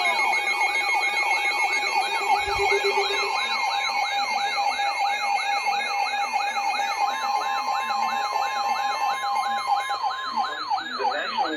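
Electronic emergency-alert siren: a rapid yelping sweep repeating about three times a second, layered with a steadier warbling alarm tone. It is the alert sounding for a severe thunderstorm warning.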